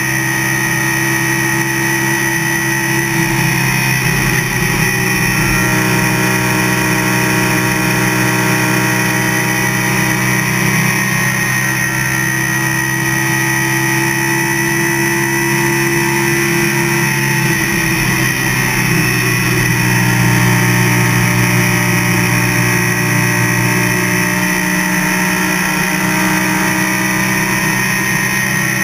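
NASCAR race vehicle's V8 engine running at speed on the track, heard from inside the cockpit as a loud, steady drone. Its note shifts slightly in pitch a little past halfway and again near the end.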